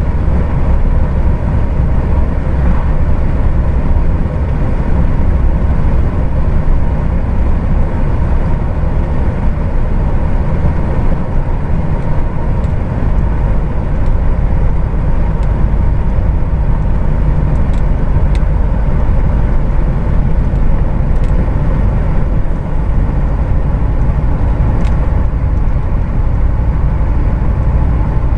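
Heavy truck's diesel engine and drivetrain running steadily on the road, a constant low rumble heard from inside the cab, with a few light ticks in the second half.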